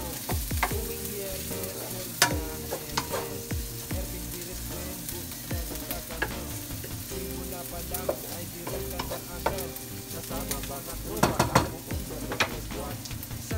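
Diced pork, onion and garlic sizzling in a nonstick wok in the pork's own rendered fat, while a wooden spatula stirs and scrapes through them with scattered knocks against the pan. A cluster of louder knocks comes near the end.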